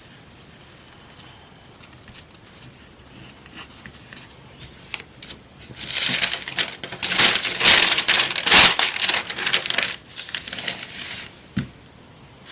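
Paper scraps being handled: a few faint crinkles, then about five seconds of loud rustling and crinkling of magazine paper with many sharp crackles, dying away near the end.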